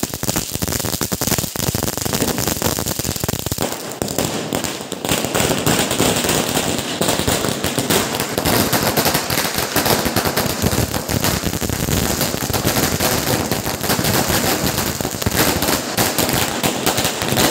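A string of firecrackers going off in a rapid, machine-gun-like run of sharp bangs. They are scattered at first and become a dense, almost continuous crackle about four seconds in.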